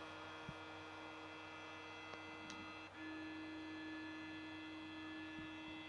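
A homemade CNC laser engraver humming steadily while it sits idle, a steady electrical whine made of several tones, with a few faint clicks and a slight shift up in pitch and loudness about three seconds in.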